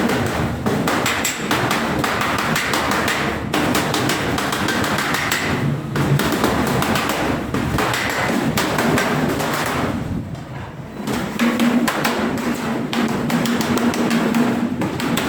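Repeated hammer blows on sheet steel, with a short pause a little after halfway, over background music.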